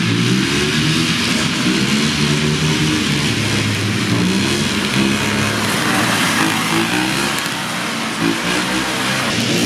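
Old snowmobile engine running under throttle, its pitch rising and falling as it revs, over a steady hiss.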